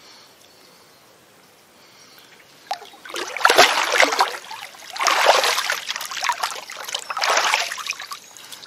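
Lake water splashing in three loud bouts, starting about three seconds in, as a large mirror carp is released by hand in the shallow margin and kicks away.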